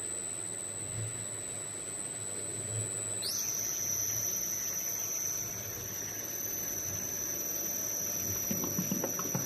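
A 7.5 kW electric IBC tote mixer with a double-layer conical impeller, running with a steady high-pitched whine over a constant mechanical hum. The whine jumps abruptly to a different pitch a little over three seconds in. Light irregular pattering starts near the end.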